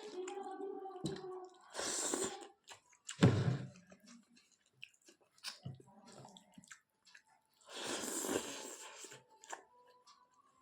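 Close-up chewing and biting of chicken and rice, with scattered short wet clicks. Two longer hissing passages come about two and eight seconds in, and a loud low thump just after three seconds.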